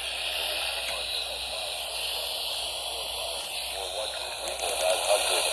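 Radio static: a steady hiss from a radio receiver on a weak broadcast signal, with a faint voice starting to come through near the end.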